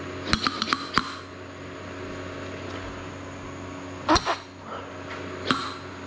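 A small pneumatic air cylinder handled with a few sharp metallic clicks in the first second, then, about four seconds in, a hard puff of breath blown into its air port to push the piston rod out, followed by a shorter puff about a second later. A steady hum runs underneath.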